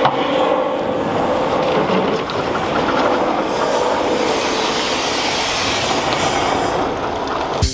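Semi-trailer rolling slowly past over broken, potholed pavement: steady heavy rolling rattle and tyre noise, with a thin steady squeal that fades out a little past halfway.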